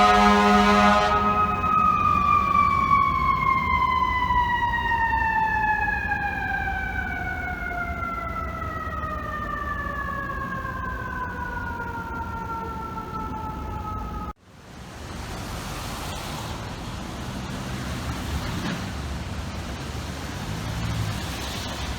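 Fire truck air horn blast ending about a second in, then a mechanical siren winding down, its pitch falling slowly and steadily for about twelve seconds. The sound cuts off abruptly partway through, and street traffic follows.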